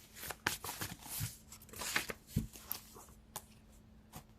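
A deck of cards shuffled by hand: a quick run of riffling and slapping card sounds that thins out about three seconds in, leaving a few scattered clicks.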